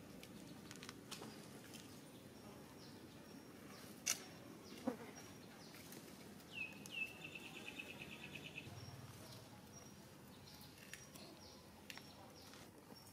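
Faint outdoor ambience with a few animal calls: a sharp click about four seconds in, a short falling squeak a second later, and a little under seven seconds in a call that drops in pitch and runs into a rapid pulsed trill for about two seconds, with thin high chirps scattered throughout.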